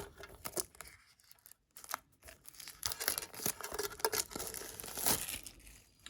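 Plastic shrink-wrap being torn and crinkled off a small card tin, in irregular crackles that thicken about halfway through.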